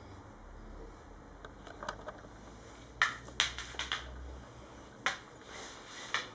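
An Irish setter's claws clicking on a laminate floor as it walks: a quick run of sharp clicks about three seconds in, then a couple of single clicks near the end.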